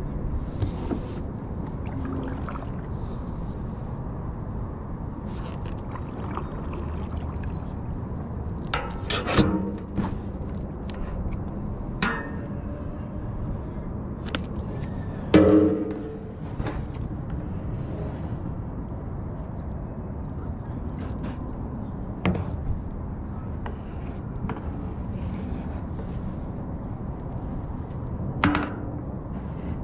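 Kayak paddling: a steady wash of water and wind with about five sharp knocks, each ringing briefly, of the paddle against the kayak's hull.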